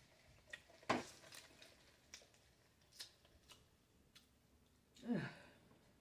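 Close-miked mouth sounds of a person eating and sipping a drink through a straw: faint scattered wet clicks and smacks, the loudest about a second in. About five seconds in comes a short vocal sound that falls in pitch.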